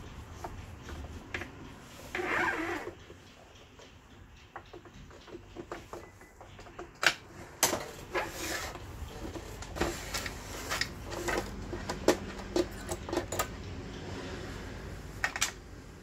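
Irregular clicks, taps and knocks of hands handling and fitting parts on a plastic-bodied sewing machine during reassembly, with a short scraping rustle about two seconds in.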